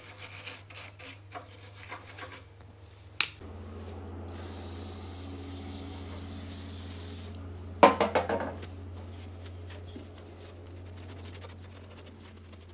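Scrubbing and rubbing on engine parts during cleaning, then a steady hiss lasting about three seconds. About eight seconds in comes a short, loud metallic clatter.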